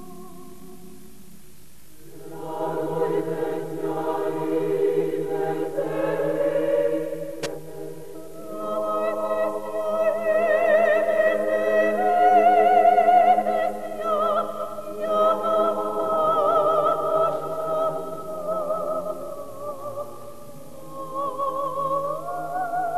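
Mixed choir singing a slow, sustained piece. A few soft held notes give way to the full choir about two seconds in. After a brief break near the middle, the choir returns louder, the voices wide with vibrato.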